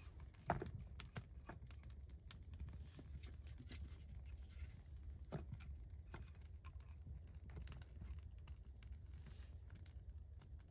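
Split wooden sticks knocking and scraping as they are set by hand into a small fire in a dug earth pit, over a run of fine crackling clicks. The sharpest knock comes about half a second in.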